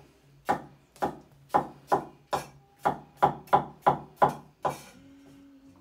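Chinese cleaver chopping green pepper on a wooden chopping board: about eleven sharp knocks, two or three a second, that stop about a second before the end.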